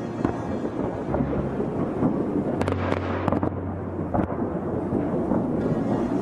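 Fireworks display: a continuous rumble of booming bursts and crackling, with a sharp bang near the middle.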